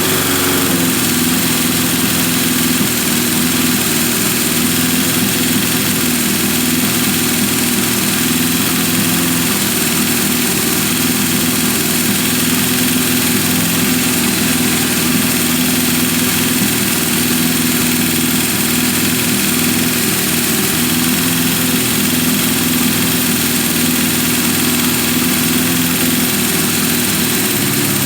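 1978 Honda CB550K's air-cooled inline four-cylinder engine idling steadily, its four carburetors not yet synchronized.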